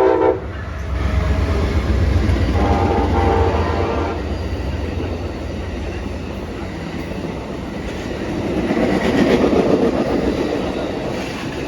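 Amtrak Pacific Surfliner passenger train passing close by, its horn sounding briefly at the start and again about three seconds in, over the steady rumble of the train and its wheels on the rails, which swells again near the end.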